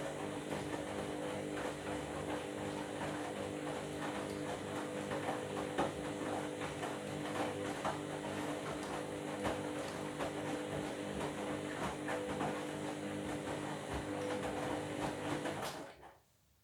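Washing machine running: a steady motor hum with frequent small clicks and knocks. It cuts off suddenly near the end.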